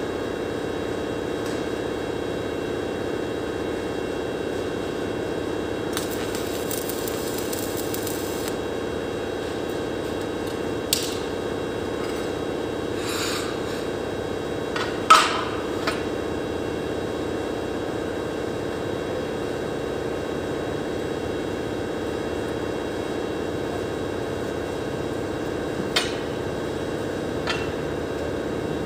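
Steel-tube frame pieces scraped and knocked against a concrete floor while being squared up, with a few sharp metal clanks, the loudest about fifteen seconds in. A steady machine hum runs underneath.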